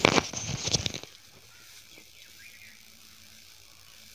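Loud rustling and crackling of grass and leafy foliage for about the first second, then a quiet outdoor background with a few faint bird chirps.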